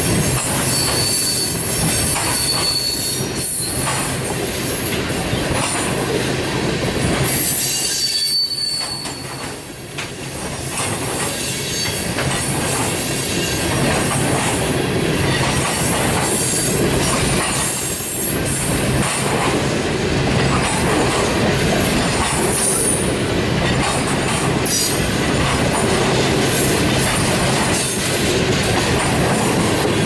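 Tank cars of a freight train rolling past on the rails: a steady rumble and clatter of steel wheels on the track, with brief high wheel squeals near the start and again about eight seconds in. The noise dips for a moment about nine seconds in.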